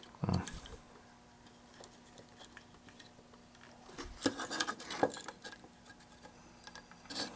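Handling noise from a power supply circuit board moved and turned by hand: a soft bump just after the start, then scattered small clicks and rattles, busiest from about four to five and a half seconds and again near the end. A faint steady hum sits underneath.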